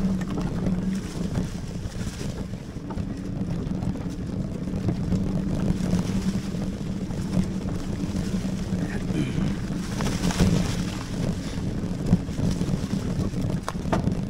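Lectric XPeak e-bike ridden along a dirt trail: a steady hum from its 750-watt hub motor under assist, with wind buffeting the microphone and scattered knocks and rattles from bumps in the trail.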